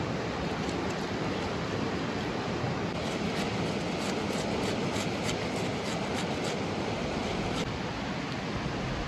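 Steady rushing of a river running full, with a run of light, irregular clicks from about three seconds in to near the end.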